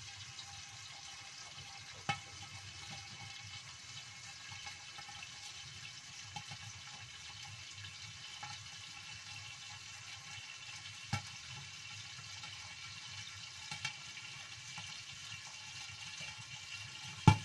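Stingray pieces frying in oil in a lidded wok: a steady sizzle with a sharp pop of spattering oil every few seconds, the loudest about two seconds in, near the middle and near the end.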